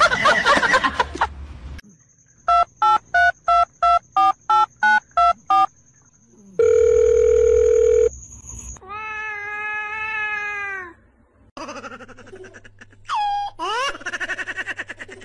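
A loud pitched blare that cuts off about two seconds in, then about ten quick electronic beeps and a steady electronic tone held for a second and a half. After that a cat meows: one long call that falls at its end, followed by sliding yowls.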